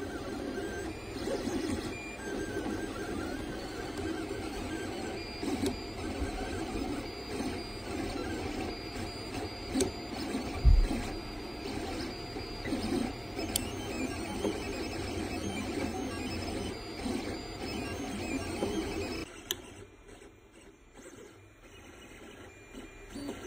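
LABISTS DIY 3D printer running a print: its motors whir and shift in pitch as the print head moves to and fro laying down the model, with scattered light ticks. A single low thump sounds about halfway through. A few seconds before the end the sound cuts to a quieter version of the same running printer.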